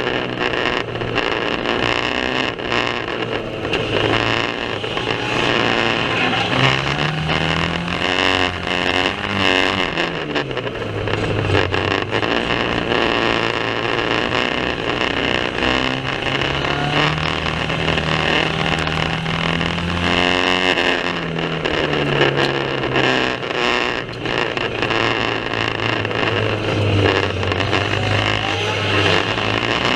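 Banger racing car engines running hard, their pitch climbing and dropping again and again as they rev and lift off, under a heavy rattle and many short knocks.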